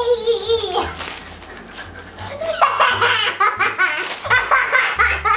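Girls laughing in short rising peals, after a child's held sung note dies away about a second in.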